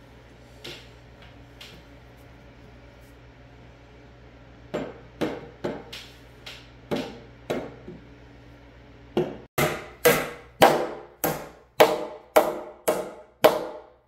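Hammer driving a nail into a reclaimed-wood bench board: a series of lighter taps to set the nail, then after a short pause about ten harder blows, roughly two a second, near the end.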